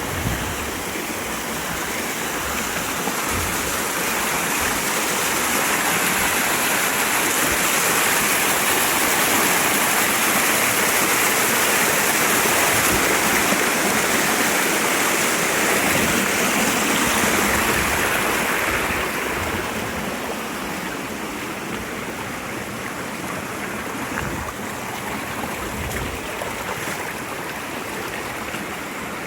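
Mountain stream rushing over rocks. It grows louder for a while, then eases off after about nineteen seconds.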